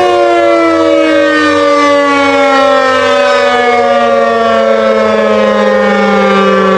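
Emergency alert alarm siren: a loud, sustained chord of several pitched tones, the lowest gliding slowly and steadily down in pitch.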